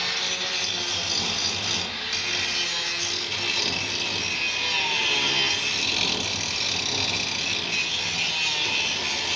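Handheld angle grinder grinding steel: a steady, hissing grind that runs without a break.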